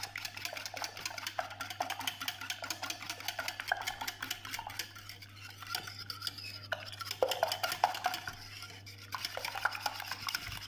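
Wire whisk beating raw eggs in a glass bowl: rapid, steady clicking of the wires against the bowl.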